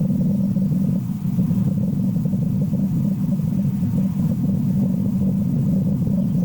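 A steady low rumble that holds level throughout, with no distinct calls or knocks.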